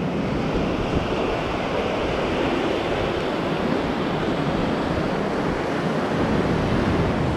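Steady wash of ocean surf breaking on a sandy beach, a continuous even noise with no distinct events.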